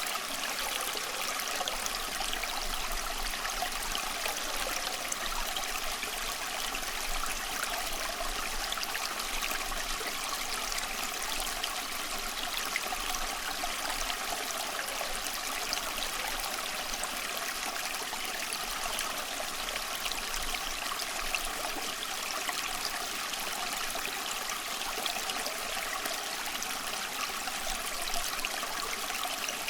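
Running water flowing steadily with an even, unbroken rush and fine trickling detail, mostly light and hissy with little low rumble.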